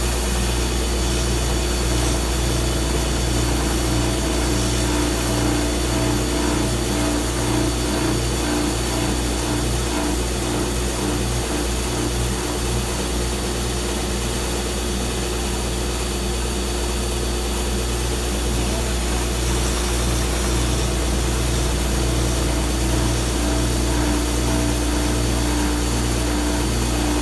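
Stationary woodworking sander running steadily, its motor giving a constant hum, while wood is worked against it.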